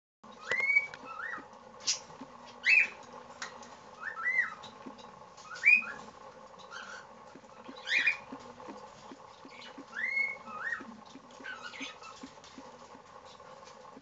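Cockatiel chirping: short rising chirps, often in pairs, every second or two, stopping about eleven seconds in. Faint ticks run beneath, as the baby cockatiel nibbles at its vegetables.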